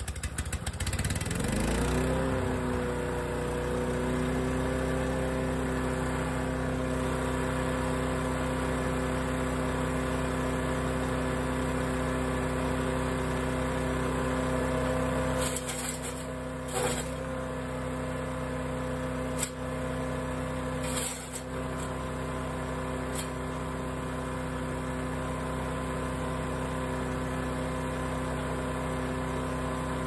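Small four-stroke engine of a Great Circle USA mini wood chipper catching on the recoil pull, rising to speed over about two seconds and then running steadily with nothing yet fed into it. A few short knocks come a little past the middle.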